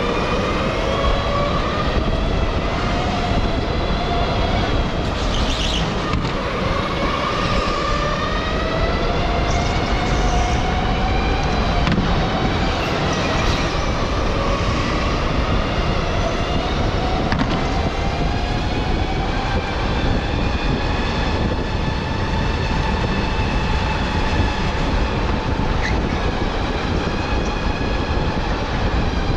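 Electric go-kart's motor whining, its pitch rising and falling as the kart speeds up and slows, over a steady rumble of wind and tyre noise, with a few short high squeals.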